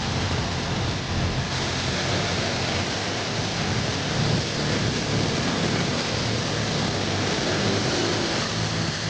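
Pressure washer spraying a steady jet of water onto a car's bodywork, brightening slightly about a second and a half in.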